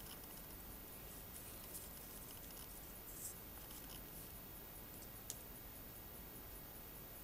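Faint steady hiss with a few soft clicks and a brief rustle as a plastic model-kit sprue is handled, with one sharper click about five seconds in.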